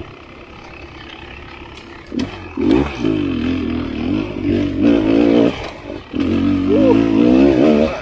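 Dirt bike engine running at light throttle, then revving hard over rough trail about two seconds in. The pitch rises and falls as the throttle is worked, with a brief let-off about six seconds in.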